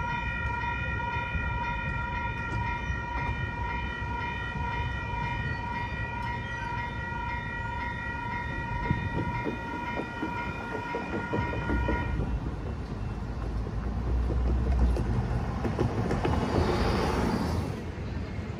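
Railroad crossing warning bell ringing steadily, stopping suddenly about twelve seconds in as the crossing clears. Road traffic rumbles under it, and a vehicle passes close near the end, swelling and fading.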